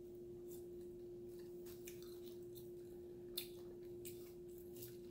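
A person eating with their fingers: soft chewing with scattered, irregular wet mouth clicks and smacks, one sharper click about three and a half seconds in. A steady hum runs underneath.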